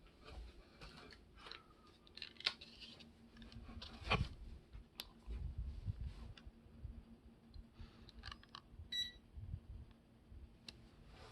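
Panasonic PX28 giving off irregular clicking and tapping noises, the abnormal 'da-da' clicking it is faulting with, over a faint steady hum. A short electronic beep sounds about nine seconds in.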